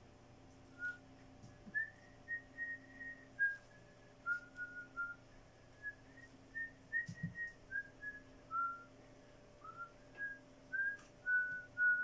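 A person whistling a slow tune: a string of short, clear notes stepping up and down, starting about a second in.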